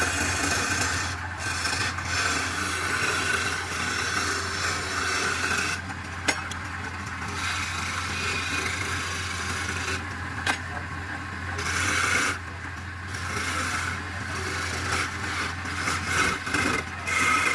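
A hand-held turning chisel cutting a spinning wooden vase on a lathe: a continuous scraping hiss of the blade shaving the wood over a steady low hum, with the cutting noise dropping out briefly a few times as the tool eases off.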